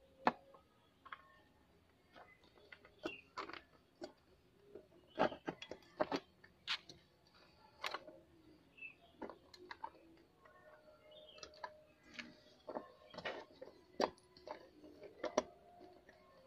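Light, irregular clicks and taps of a metal licence-plate bracket being handled and fitted against a motorcycle's plastic tail fairing.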